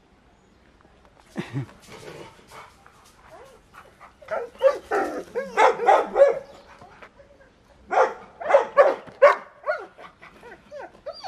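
Guard dogs barking in two loud bouts of rapid barks, one a few seconds in and another about eight seconds in, with softer whining calls near the end.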